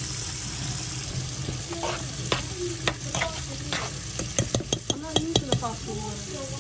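Tap water running steadily into a stainless steel sink, while cooked pasta shells are moved about in a pot. From about two seconds in come scattered light clicks and knocks, thickest in a quick run between about four and five and a half seconds.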